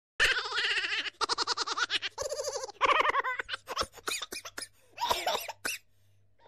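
Laughter in quick pulsing bouts, most continuous over the first three seconds, then shorter scattered laughs and one more bout about five seconds in.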